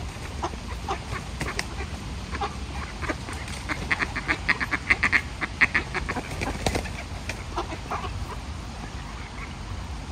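Mallard ducks quacking: scattered calls, then a fast run of loud quacks in the middle, about five a second.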